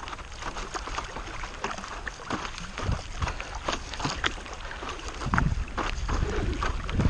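Stand-up paddle board paddling on a lake: the paddle dipping, with water splashing and dripping in many small irregular clicks, and a few low buffets of wind on the microphone.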